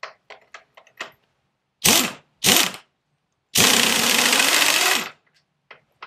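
Parkside air impact wrench hammering on a bolt: two short bursts, then one longer run of about a second and a half that slows as it stops. A few light metal clicks come before the bursts.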